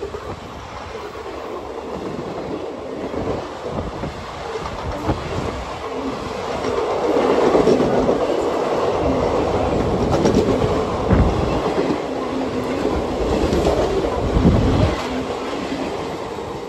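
An Indian Railways express passenger train's coaches running past at speed: a steady rumble and rattle of wheels on track. It grows louder over the first several seconds and then holds loud, with a few heavier thuds near the end.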